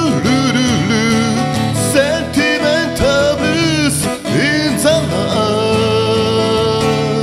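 A man singing while strumming an acoustic steel-string guitar, ending on one long held note for the last couple of seconds.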